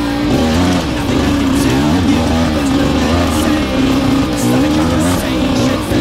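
Kawasaki KDX 200 single-cylinder two-stroke dirt bike engine, fitted with a KTM muffler, revving up and down continuously while the bike is ridden along a trail.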